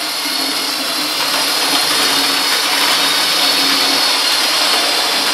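OO gauge model train running on the layout: the locomotive's electric motor whirring steadily, with the wheels going clickety-clack over the points and rail joints like a real locomotive.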